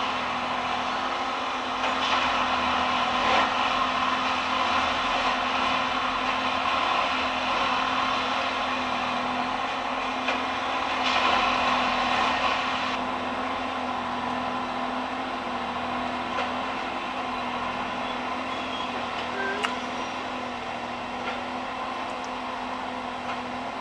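Diesel engines of railway track maintenance machines running steadily, a constant drone with a steady low hum, swelling a little a couple of times.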